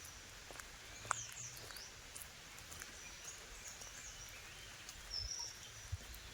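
Birds chirping, with scattered short high chirps and whistled glides, clustered about a second in and again near five seconds, over a low rumble. A sharp click sounds about a second in.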